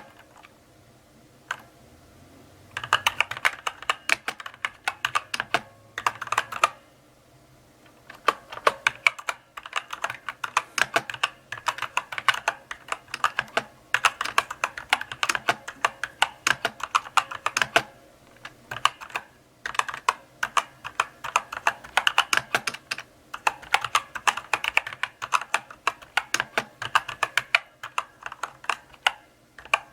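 Typing on a mechanical keyboard: runs of crisp key clicks and clacks at a slow, uneven pace, broken by short pauses of a second or two.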